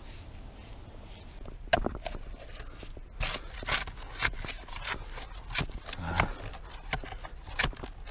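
Scraping and knocking in dirt and debris: one sharp knock about two seconds in, then uneven strokes roughly every half second.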